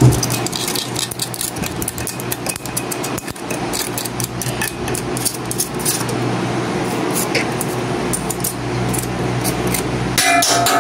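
Irregular light metallic clicking and tapping of an oil applicator against the end of a flood-soaked, seized sewing-machine clutch motor as oil is worked into its shaft, over a steady low hum. A short squeak comes near the end.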